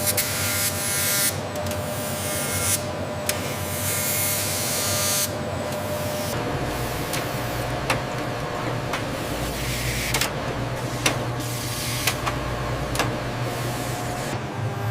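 Small machinery running with a steady hum, two bursts of hissing in the first few seconds and scattered sharp clicks.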